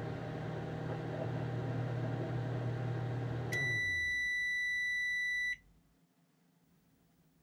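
Microwave oven running with a steady hum. About halfway through the hum stops and the oven gives one long, steady beep of about two seconds, the signal that its heating cycle has finished.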